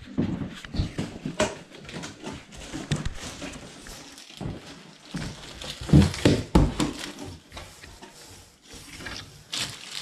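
Cardboard of a bicycle shipping box and the plastic-wrapped parts inside being handled: irregular rustling, scraping and light knocks, with a couple of louder thumps about six seconds in.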